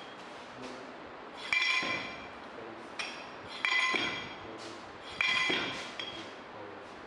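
Steel soil-compaction rammer dropping inside its guide tube onto the soil in a permeameter mould: three sharp metallic strikes about two seconds apart, each ringing briefly. These are compaction blows on a layer of moist soil.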